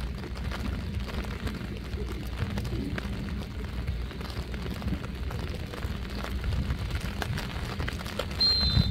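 Wind rumbling on the microphone, with faint scattered ticks. Near the end, a short, shrill blast of a referee's whistle, the loudest sound.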